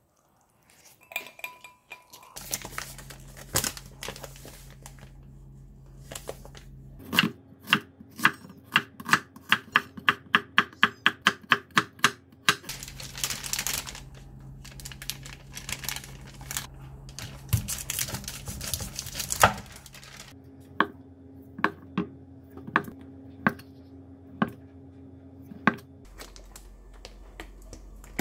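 Kitchen prep on a wooden cutting board: a quick run of knife chops at about three to four a second, then plastic sausage wrapping crinkling and tearing, then scattered knocks over a steady low hum.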